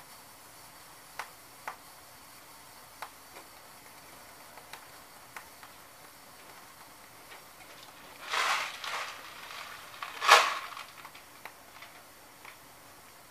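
Scattered light ticks and clicks from a heating electric coil burner and the stainless steel pot on it, as the water heats toward a boil. Two louder short hissing rushes come about eight and ten seconds in; the second is the loudest.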